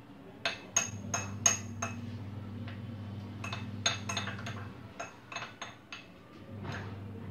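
A spoon clinking and tapping against a small glass bowl while stirring batter, in irregular runs of quick, bright clinks, over a steady low hum.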